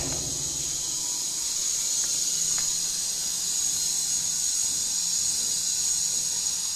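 A steady high-pitched hiss at an even level, with a couple of faint ticks about two seconds in.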